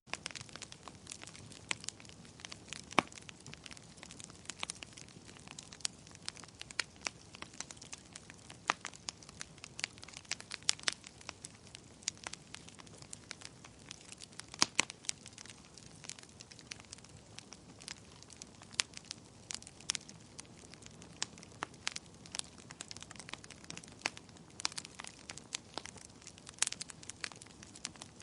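Wood fire burning, crackling and popping irregularly over a soft steady hiss, with a few louder pops now and then.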